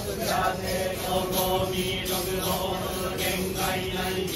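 Buddhist sutra chanting at a Fudo Myoo shrine during a fire ritual: a steady, droning recitation held on a nearly constant pitch.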